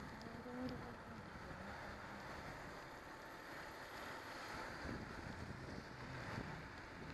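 Faint steady outdoor rumble and hiss of distant traffic and idling vehicles, with a brief faint voice-like sound about half a second in.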